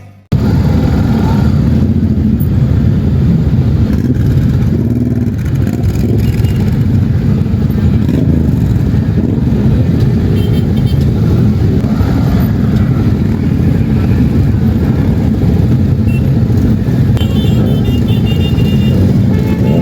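Honda XR 250 Tornado's single-cylinder four-stroke engine running steadily while the motorcycle is ridden, under a rushing noise heavy in the low end. It cuts in suddenly just after the start.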